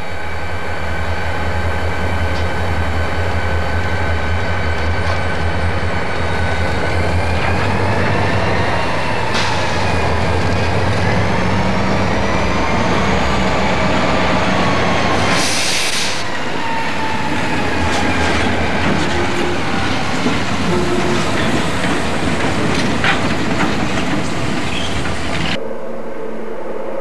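Denver & Rio Grande Western diesel freight locomotives and cars passing close by, with a heavy steady engine rumble, wheel clatter and a high wavering whine over it. There is a brief hiss about fifteen seconds in. Near the end the train sound gives way to a quieter, more distant background.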